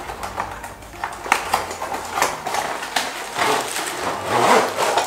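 A long cardboard box being opened and a light stand in a plastic bag slid out of it: irregular rustling and scraping of cardboard and plastic, with a few sharp clicks.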